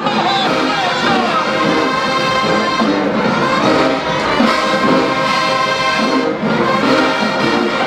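Marching band playing loudly, its brass section of trumpets and trombones holding full sustained chords.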